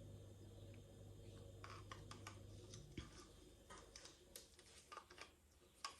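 Near silence with faint scattered clicks and taps, as of paint cups or bottles being handled. A low hum stops about three seconds in.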